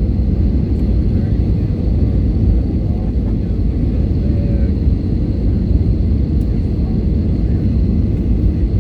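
Steady low rumble of engine and airflow noise heard inside an Airbus A320's cabin.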